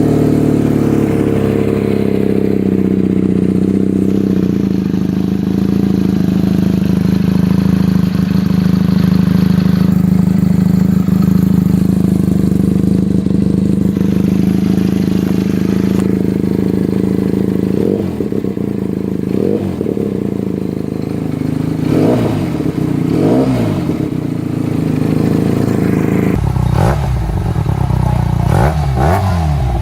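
Benelli 302 motorcycle's parallel-twin engine running through an aftermarket exhaust muffler. It idles steadily for the first half, then is blipped with a series of quick throttle revs that rise in pitch and fall back, coming closer together near the end.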